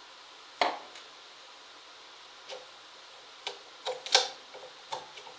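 Sharp metallic clicks and clinks from metal pump parts and needle-nose pliers being handled during disassembly. There is a loud click about half a second in, then a few faint ones, and a cluster of clinks around four seconds in.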